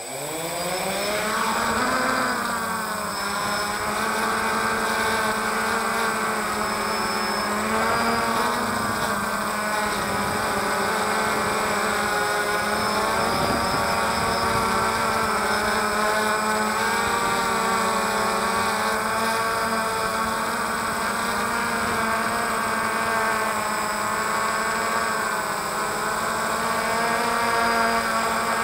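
DJI Phantom quadcopter's motors and propellers spinning up, rising in pitch over the first two seconds, then running at a steady whine in flight, the pitch wavering slightly as it climbs and manoeuvres. Heard from the camera on the drone itself, so the motors are very close.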